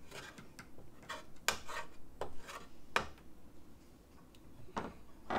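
Slotted spatula scraping and tapping on the plate of a Black+Decker electric griddle: irregular short scrapes and clicks, fewer after about three seconds.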